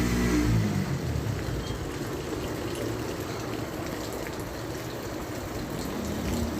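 Steady rain falling, an even hiss with scattered faint drop ticks. A low humming tone cuts off about half a second in.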